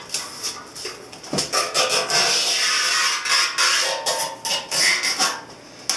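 Masking tape being peeled off a freshly painted motorcycle gas tank: a long crackling rip from about a second and a half in until near the end, with a few short tearing pulls before it.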